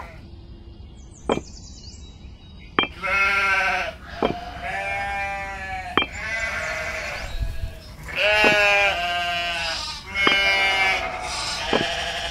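Bleating livestock: about five long, wavering bleats that start some three seconds in, with sharp clicks between them.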